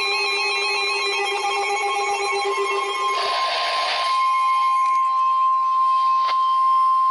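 Emergency alert tones from a NOAA Weather Radio broadcast: a warbling electronic alarm that steps between pitches, a short raspy burst about three seconds in, then the steady single-pitch 1050 Hz weather radio alert tone.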